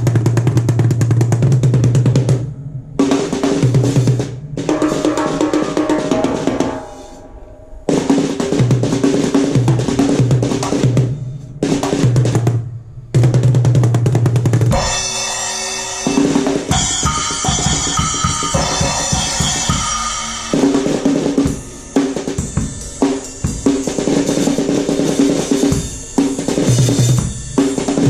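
A drum kit voiced with the 'Indian Subsonic Bass Sound Kit' plays a groove with a deep, pitched bass drum that rings on, and snare strokes, with a few short breaks between phrases. Around the middle comes a stretch of high, ringing, bell-like tones.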